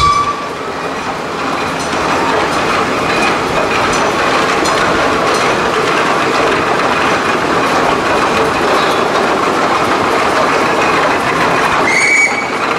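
Fowler steam roller driving past, its steam engine making a steady working hiss and rattle. A short high whistle sounds briefly near the end.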